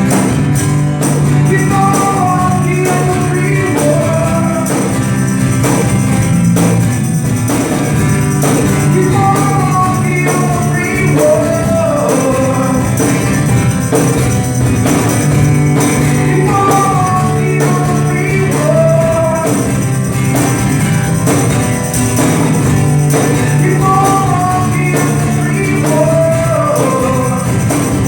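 A band playing a song, with a sung melody in repeated phrases over a steady beat.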